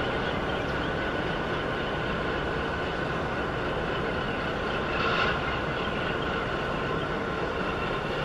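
Machinery of the Hapag-Lloyd container ship Basle Express passing close by: a steady drone with several high whining tones on top. It swells briefly about five seconds in.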